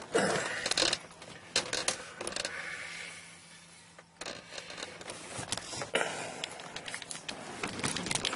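Rustling and scraping handling noise with scattered sharp clicks, made by a person shifting about in a car seat while the camera is jostled.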